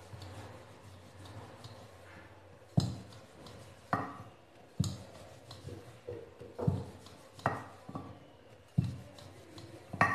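Wooden rolling pin rolling a bread slice thin on a stone rolling board. The pin gives a sharp knock roughly once a second from about three seconds in, with softer rubbing between the knocks.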